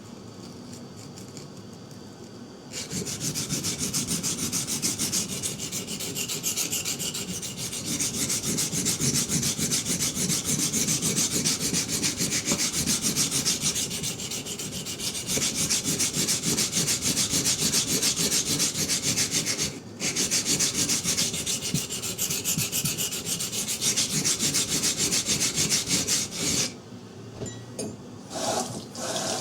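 Steel knife blade of CPM 3V rubbed back and forth on a coarse 120-grit water stone, grinding down the main bevel. It makes a steady scrubbing sound that starts about three seconds in, breaks off briefly about twenty seconds in, and stops a few seconds before the end.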